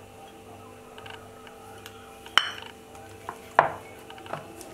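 A small steel bowl of ghee clinking sharply about halfway through, with two more knocks in the next two seconds, over a faint steady hum.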